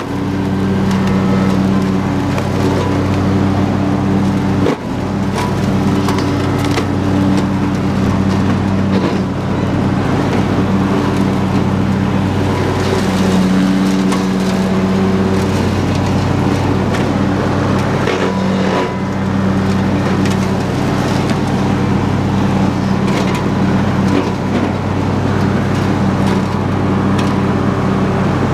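Husqvarna YTH22V46 lawn tractor's V-twin engine running steadily under load with the mower blades engaged, cutting through tall weeds and brush. Stalks and sticks crack and crunch in the deck, and the engine note dips briefly about five seconds in.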